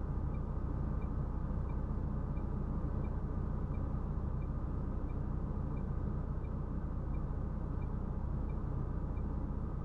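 Steady low drone of a MAN TGX 470 truck's six-cylinder diesel engine heard inside the cab, holding an even speed, with faint regular ticks about one and a half times a second.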